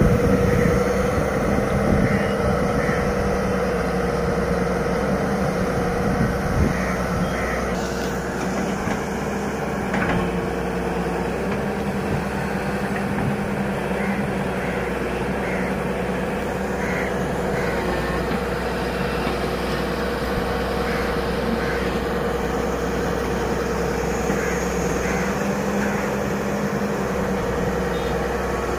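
Hyundai 210-7 crawler excavator's diesel engine running at a steady speed, a constant hum, as the machine works its arm and bucket. A couple of light knocks come about a third of the way in.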